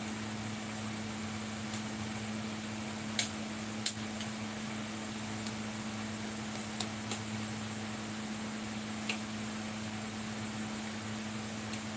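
Metal ladle clinking against the rim and sides of a stainless steel soup pot while stirring, a scattering of brief sharp clinks with the loudest two about three and four seconds in, over a steady low hum.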